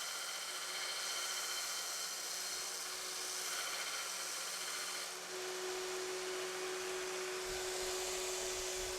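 Belt grinder running, its abrasive belt grinding the rough stamped edges of a quarter-inch steel gusset: a steady hiss over a constant motor tone, easing briefly about five seconds in.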